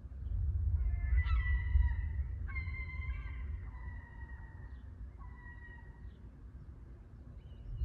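Rolling thunder: a deep rumble that swells right away and fades over the next few seconds. High, drawn-out calls sound over it from about a second in, several in a row, fading out about six seconds in.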